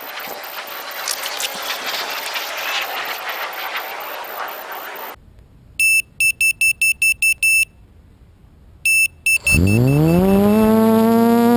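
Rustling handling noise close to the camera, then a quadcopter's lost-model alarm buzzer sounds a quick run of about eight short high beeps and a few more. About nine and a half seconds in, the quad's electric motors spin up with a rising whine that levels off into a steady hum.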